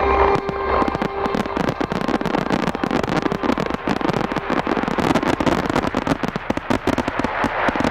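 Fireworks going off in a dense, rapid barrage: many sharp reports and crackles, one on top of another.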